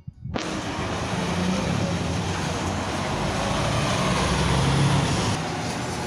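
Heavy truck driving by, its engine and road noise starting abruptly, growing louder over the first few seconds and easing off near the end.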